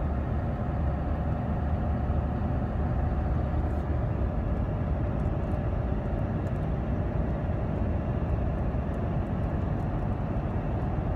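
Steady road and engine noise inside the cabin of a truck driving at highway speed.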